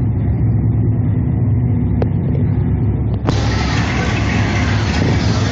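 A car engine running steadily with a low rumble, and a single sharp click about two seconds in.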